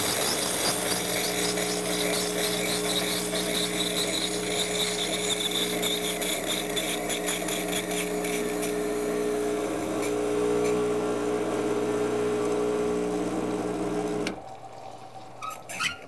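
Rancilio Silvia's vibratory pump humming while steam and hot water hiss out of the open steam wand: the boiler is being purged of steam and refilled with cooler water to bring it down to brew temperature. Pump and hiss both cut off suddenly about 14 seconds in.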